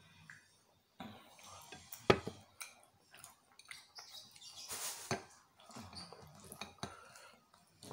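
Close-up eating sounds: fried cireng (tapioca fritters) being picked from a glass plate and chewed, with a run of small clicks and taps of fingers and food on the glass. A sharp click about two seconds in is the loudest.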